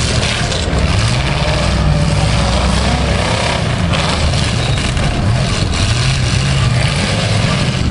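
Demolition derby cars' engines running hard and revving, the pitch rising and falling as the cars manoeuvre.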